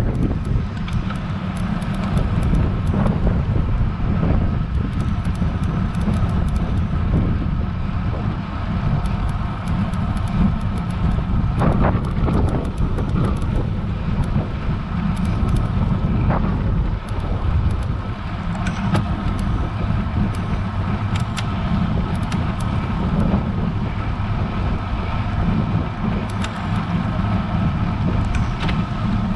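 Wind rumbling on an action camera's microphone while a road bike is ridden uphill, with steady road noise and scattered light ticks.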